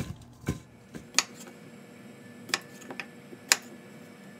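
Cauliflower florets tossed in a stainless steel bowl, clacking against the metal twice about half a second apart. About a second in this gives way to a few sharp, spaced knocks of a knife cutting potatoes on a wooden cutting board.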